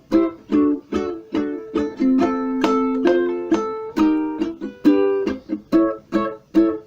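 Concert-size Magic Fluke ukulele strung with Aquila Silkgut strings, strummed in a steady rhythm of about two chords a second, with a few chords left to ring longer in the middle.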